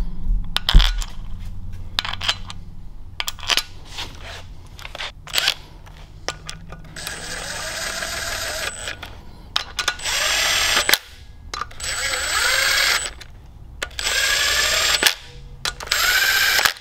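Steel side-cover bolts clinking as they are handled and started by hand, then a cordless Makita impact driver running them into the crankcase side cover in five short bursts of motor whine, each one to two seconds long, its pitch shifting as it spins up and slows.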